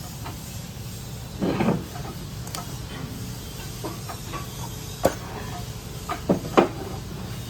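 Metal parts of a hydroseeder gear pump being handled during disassembly: a handful of short clicks and knocks, the sharpest two close together near the end, over a steady low hum.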